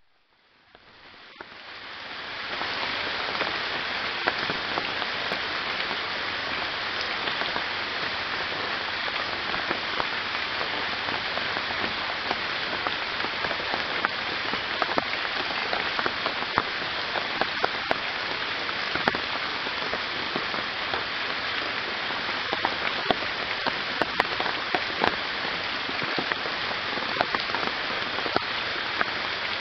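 Heavy rain falling steadily on foliage and standing water: a dense, even hiss peppered with many sharp drop hits. It fades in over the first couple of seconds, then holds steady.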